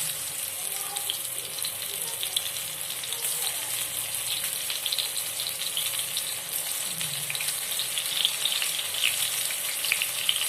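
Masala-coated soya chunks deep-frying in hot oil in a pan: a steady sizzle with dense crackling throughout.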